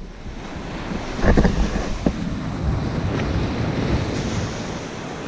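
Ocean surf washing onto a sandy beach, with wind rumbling on the microphone. A few brief knocks stand out about a second and two seconds in.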